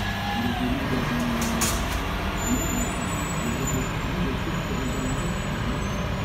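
Rear-loading garbage compactor truck running steadily while stopped, a low mechanical drone with a wavering hum, and a couple of light knocks about one and a half seconds in.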